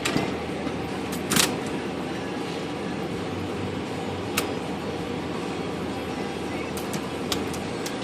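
Clunks, a short scrape and a few sharp clicks as a heavy IBM Selectric typewriter is handled and propped on its side on a workbench, over a steady low hum.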